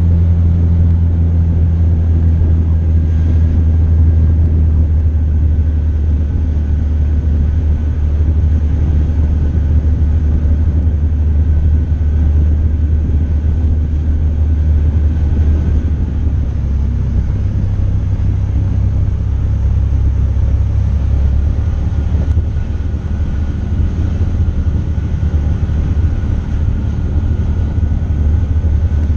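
Motorcycle being ridden slowly along a street: a steady low rumble of engine and riding noise.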